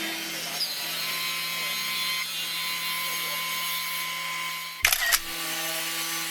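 CNC router spindle running steadily while cutting a GRC (glass-fibre reinforced cement) board, a steady whine over a high hiss. There is a brief sharp clatter a little under five seconds in.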